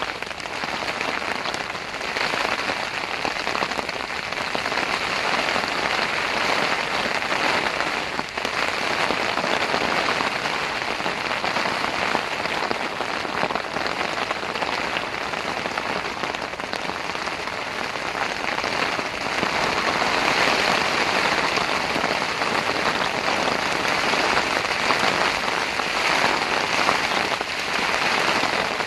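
Heavy rain pelting a tent, a dense, steady patter of countless drops that swells a little in intensity now and then.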